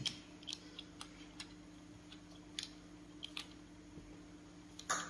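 Faint, irregular small clicks and taps over a steady low hum, with a louder click near the end.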